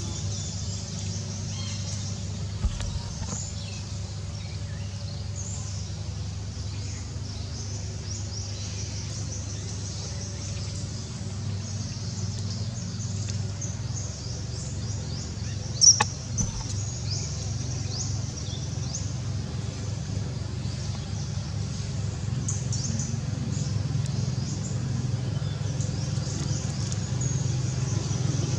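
Outdoor ambience: a steady low rumble that grows louder near the end, with frequent short high chirps and one sharp click just past halfway.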